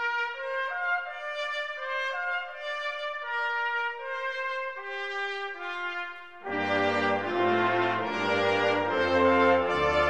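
Intro theme music: a single melody line of held notes, joined about six and a half seconds in by lower parts and a bass line, and from there it is fuller and louder.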